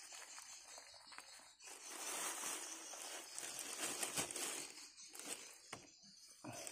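Thin plastic bag crinkling and rustling as it is handled, louder in the middle stretch.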